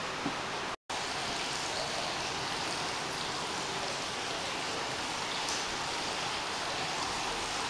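Hot-spring water pouring steadily into a rock-lined bath, a continuous splashing hiss that drops out for a moment just under a second in.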